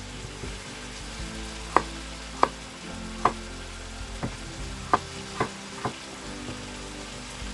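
Kitchen knife cutting through a vegetable and knocking on a wooden cutting board, about seven separate sharp chops at an uneven pace.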